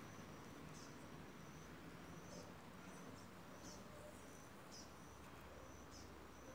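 Quiet outdoor background with a faint, short high chirp repeating about once a second.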